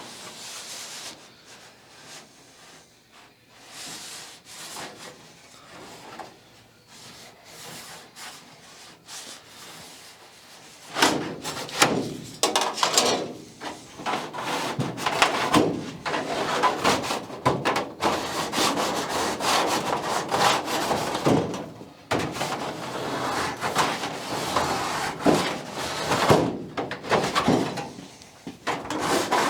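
Light handling knocks, then about a third of the way in a run of loud, continuous scraping strokes on the workpiece with brief pauses between stretches, typical of filing, sanding or cutting sheet metal by hand.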